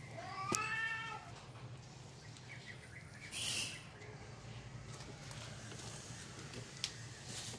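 A dog gives one short whine that falls in pitch at the end, about a second long, as it is held and fitted with a fabric muzzle. A couple of seconds later there is a brief rustle.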